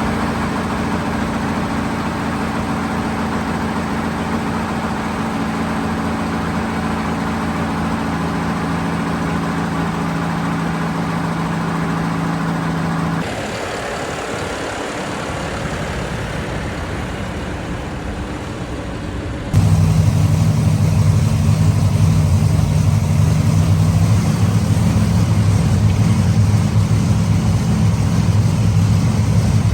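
Heavy pulling engine running at a steady speed, heard in three edited stretches: the sound cuts to a quieter, different engine sound about 13 seconds in, then jumps to a louder engine about 19 seconds in.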